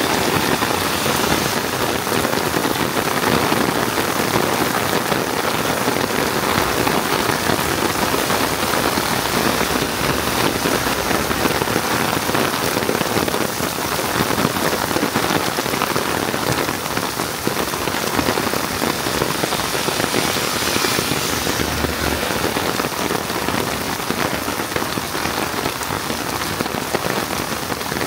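Heavy rain falling steadily, a dense, even hiss of countless drops.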